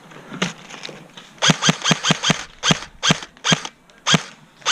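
Airsoft electric rifle firing a string of about nine single shots in quick, uneven succession, each a sharp loud snap, starting about a second and a half in.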